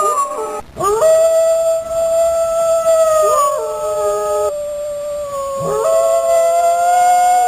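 Dogs howling in long, held notes, two voices overlapping. New howls swoop up about a second in, midway, and again near the end.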